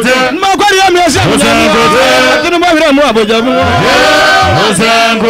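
A solo voice singing a Ghanaian gospel song in Twi over instrumental backing, with long, sliding sung notes.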